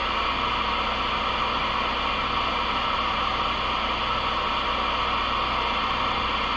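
Steady static hiss from a Galaxy DX 33HML CB radio's speaker with the squelch open and no station coming through, over a low hum. It is band noise while skip conditions have not yet opened.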